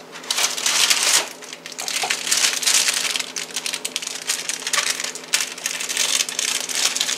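Plastic wrapper of a rolled refrigerated pie crust crinkling in irregular bursts as the crust is pulled from its box and unwrapped.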